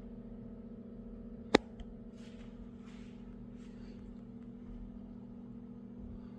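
A single sharp click about a second and a half in, with a few faint rustles of handling, over a steady low hum: lock hardware being handled and fitted on a door.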